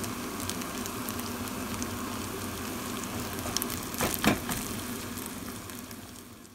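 Fried rice and a fried egg sizzling in a hot pan, a steady hiss with scattered crackles. About four seconds in, a short burst of louder scraping as a rice paddle works the rice, then the sizzle fades near the end.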